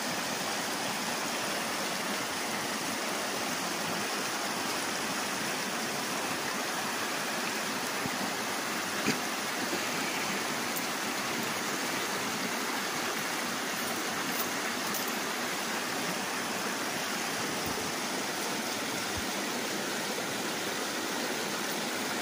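Shallow, rocky creek running over stones: a steady, even rush of flowing water.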